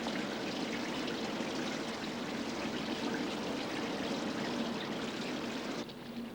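Running water, a steady flow that stops abruptly near the end.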